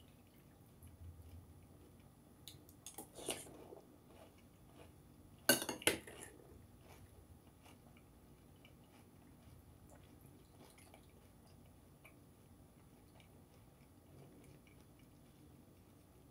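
A spoon clinking and scraping in a bowl of cereal and milk, with two sharp clinks about five and a half and six seconds in, and quiet chewing of the cereal.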